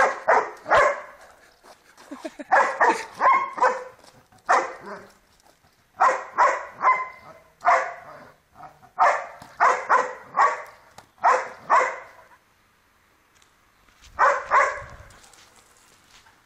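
German Shepherd–Bernese Mountain Dog mix barking in quick volleys of several barks at a time, demanding a ball held out of its reach. Near the end the barking stops for about two seconds, then one more short volley follows.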